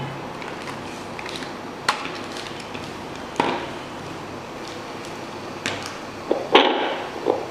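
Handheld fetal doppler's speaker giving a steady hiss, broken by about half a dozen irregular knocks, the loudest near the end.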